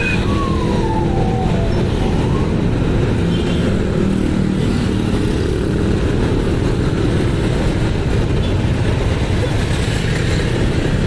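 Motorcycle and scooter engines running at a steady idle and low speed in a packed queue of two-wheelers, heard as a constant close rumble with a brief falling whine at the very start.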